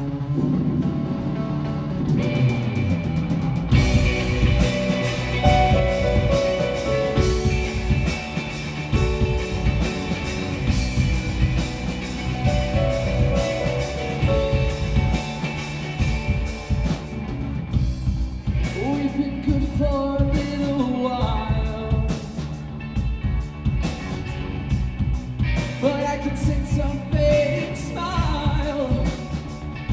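Alternative rock band playing live, with electric guitar, electric bass, keyboard and drum kit. The full drum beat comes in about four seconds in, and singing joins in the second half.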